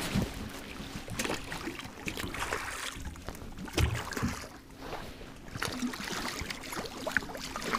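Water splashing and slapping beside a boat's hull as a hooked spurdog thrashes at the surface, with scattered short knocks.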